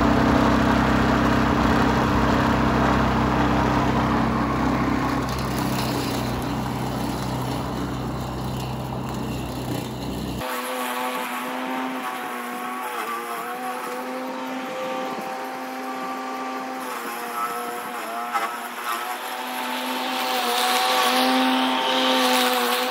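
Electric motor of a converted Craftsman push mower spinning its blade at full throttle: a steady hum and whine. About ten seconds in the sound changes abruptly to a thinner whine that dips slightly now and then as the mower cuts into tall grass.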